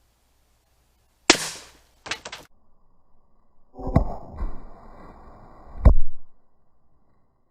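A .22 LR blank fires once with a sharp crack, launching the blade of a homemade pipe ballistic knife, followed by a few quick clicks. A couple of seconds later comes a spell of knocking and clatter ending in a heavy thump.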